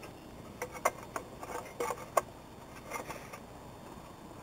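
Clay roof tiles clinking and knocking against each other as they are handled and laid in place, a string of irregular sharp clinks, some with a short ring.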